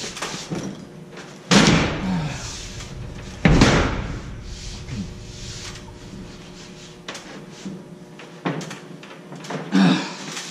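Drywall sheet being forced into a tight spot over a steel-framed door opening, banging against the framing. Two loud bangs come about two seconds apart, followed by lighter knocks near the end, as the board refuses to go in.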